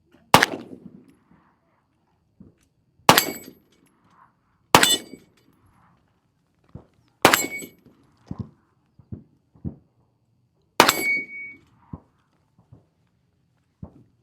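Five pistol shots fired one at a time, a few seconds apart, each a sharp crack with a short ringing tail, with fainter, smaller cracks between them.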